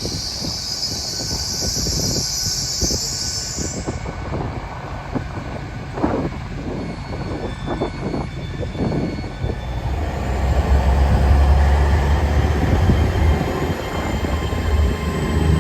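A train at the station. A high hiss stops about four seconds in, a run of irregular knocks follows, and then a locomotive engine's low, steady drone grows louder for the last third.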